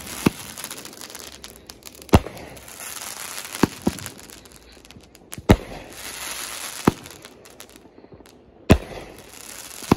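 A 16-shot 500 g consumer fireworks cake (Pyro Demon Creeping Death) firing shot after shot. There are about eight sharp bangs, roughly one and a half seconds apart, with a crackling hiss from the bursting stars between them.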